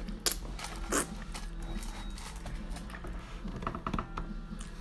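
Close-miked eating sounds from a mouthful of jajangmyeon (black bean noodles): wet slurps as the noodles go in, then chewing with a few sharp lip smacks about three and a half seconds in.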